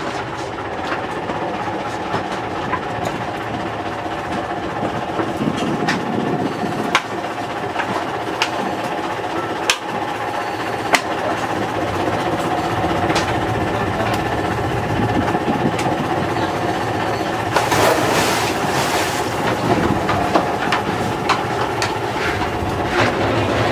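Dive boat's engine running with a steady drone, with scattered knocks and clanks from scuba tanks and gear on the deck. About eighteen seconds in there is a burst of hissing that lasts a couple of seconds.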